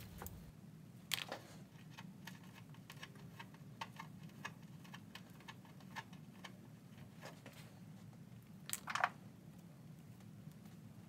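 Faint, irregular small clicks and rustles of hands twisting stripped battery-cable wire strands, with two louder sharp clicks, one about a second in and one near nine seconds. A steady low hum runs underneath.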